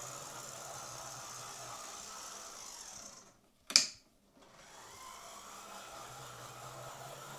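Motor of a Jouef TGV model train locomotive running on the track with a steady buzzing hum, a noisy runner. About three seconds in it stops, a single click follows, and it starts again running in reverse, quieter than going forward.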